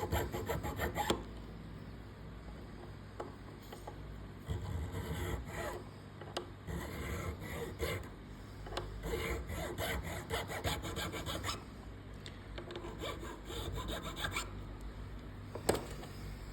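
Unbleached bone nut rubbed back and forth on sandpaper in several bursts of quick rasping strokes with short pauses between, as it is sanded down to fit the guitar's nut slot. A single sharp knock near the end.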